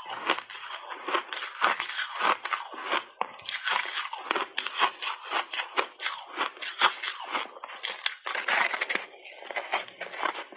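Close-up crunching of an ice block coated in matcha powder being bitten and chewed: rapid, irregular cracks and crunches of ice breaking between the teeth.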